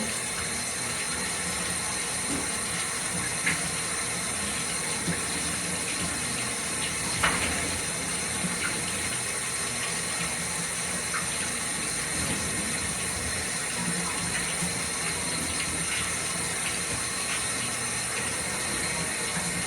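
Running water from a tap or hand shower rinsing a dog in a bathtub, a steady rush with a few small knocks.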